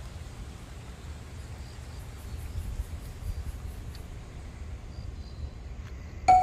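Outdoor ambience: a steady low rumble, with faint, rapid, high-pitched insect chirping for a couple of seconds in the middle.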